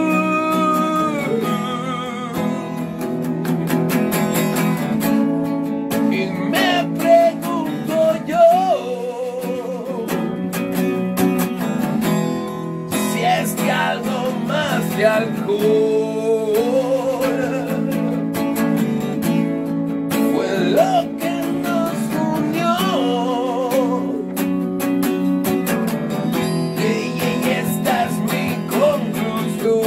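A man singing to his own strummed acoustic guitar: steady chords under a wavering sung melody.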